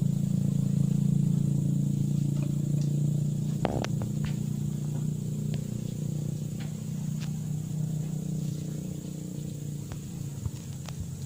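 A low, steady engine hum that slowly fades, with a thin high steady whine above it and a few faint clicks.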